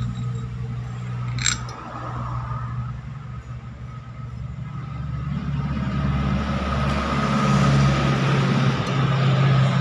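A vehicle engine runs steadily in the background with a low hum, growing louder through the second half. A single sharp metallic click sounds about one and a half seconds in.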